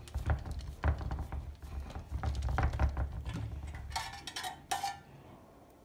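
Hands patting and pressing a block of folded dough on parchment paper over a metal tray: dull thumps and short rustling clicks. About four seconds in, a few ringing clinks of a metal spoon against a small metal bowl.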